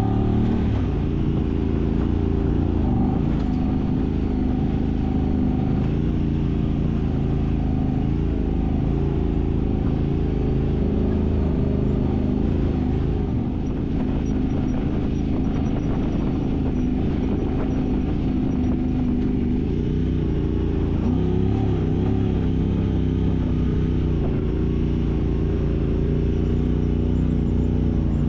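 Side-by-side UTV engine running steadily under way, its pitch dipping and rising slightly a few times as the throttle changes.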